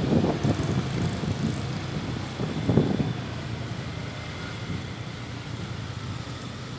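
Engine noise of vehicles driving on the road: a low drone with louder surges at the start and about three seconds in, then steadier.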